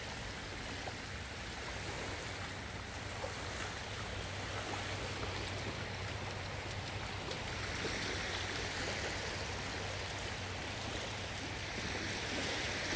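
Calm, shallow sea water washing and lapping gently at the shoreline, a steady, even noise.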